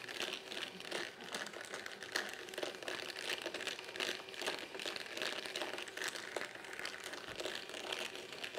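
Hobby rock tumbler running: rocks, grit and water clattering in its turning barrel, a dense continuous rattle of quick clicks.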